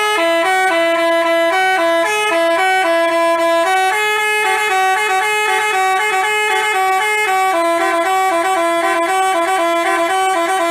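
Basuri telolet bus horn playing a tune of quick, stepped notes, alternating between two notes at first and moving to a higher passage from about four seconds in.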